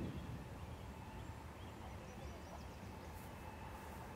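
Distant Norfolk Southern diesel freight locomotives give a steady low rumble under a steady insect drone. A few faint bird chirps come about two seconds in.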